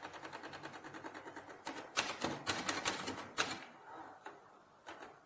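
Manual typewriter being typed on fast, its keys clacking at about ten strokes a second. The loudest strikes come around the middle, and the typing thins to a few single clicks near the end.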